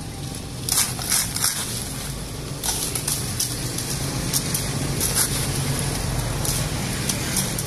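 Street ambience: a steady low hum of traffic, with a dozen or so short, sharp hissy scrapes scattered through it.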